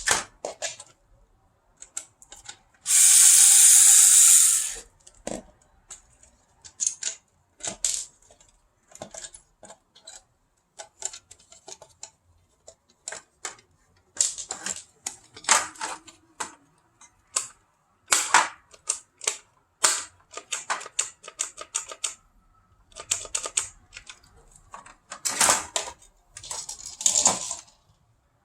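Plastic parts and screws of a tower fan clicking and knocking as it is taken apart by hand, in irregular taps and clatters. About three seconds in, a power tool whirs loudly for about two seconds.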